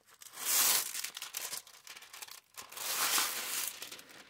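Clear plastic covering on a diamond painting canvas crinkling and rustling as hands handle it and pull it back, in two longer stretches with short crackles between.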